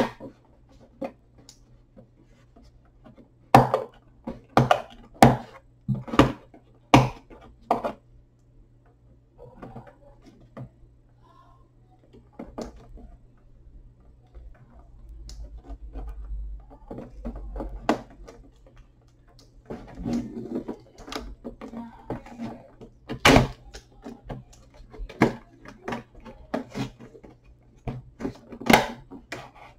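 Clear plastic packaging of an action figure box being pried and pulled open by hand: sharp plastic clicks and snaps with crinkling between them, in a quick run a few seconds in and again in the last third.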